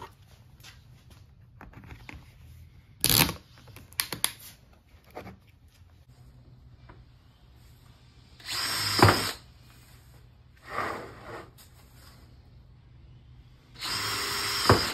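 Cordless drill boring mounting holes through a plastic exterior shutter, in two short bursts of about a second each with a weaker one between them. A few sharp knocks come earlier.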